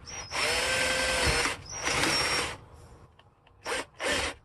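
Power drill running in bursts: two runs of about a second each, then two quick blips near the end, a pilot hole being pre-drilled through a wooden shim for a screw.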